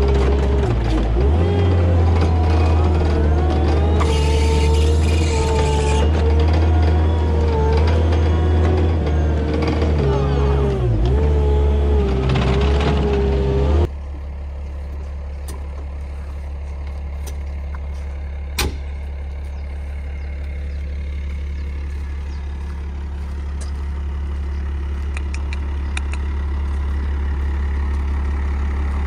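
Engine of a compact farm vehicle pushing silage along a feed alley, running and changing speed with a wavering pitch. About halfway through it cuts off suddenly to a quieter, steady low diesel engine hum with one sharp click, and the hum grows slightly louder near the end.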